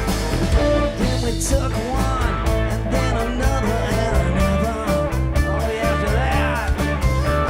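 Rock and roll band playing, with electric guitar bending notes over bass and a steady drum beat.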